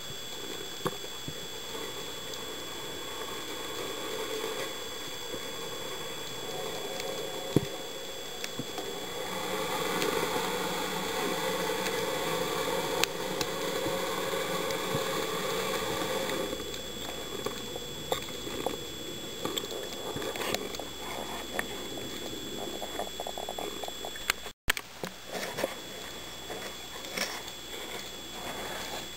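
Underwater sound picked up through a camera housing: a steady hiss with a faint high whine, and scattered sharp clicks and crackling. Several seconds of rushing noise swell up in the middle, and the crackling grows busier in the second half.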